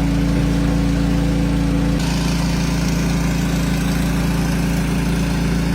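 Diesel farm-machinery engine idling steadily.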